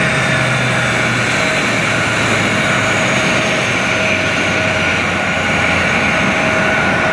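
Jet airliner turbines running at the gate: a loud, steady whine over a low rumble, with a high tone that slowly falls in pitch during the first few seconds.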